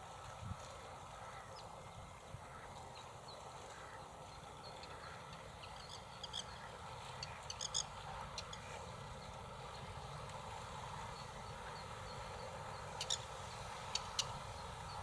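Steady outdoor background noise with a few brief high-pitched bird chirps, a cluster near the middle and two or three more near the end.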